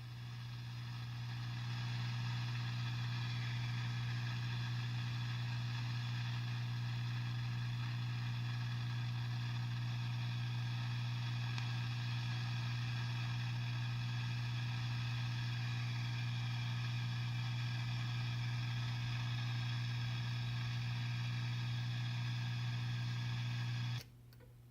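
Brand new Marshall DSL 40C guitar combo amp putting out a strong low hum with hissing static and several steady whining tones, with no guitar being played: the terrible static fault of the new amp. The noise swells up over the first two seconds, holds steady, and cuts off suddenly near the end, leaving a faint hum.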